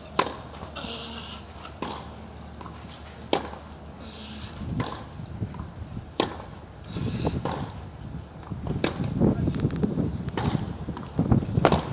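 A tennis rally: a ball struck back and forth by rackets, one sharp hit about every second and a half. Crowd noise swells over the last few seconds.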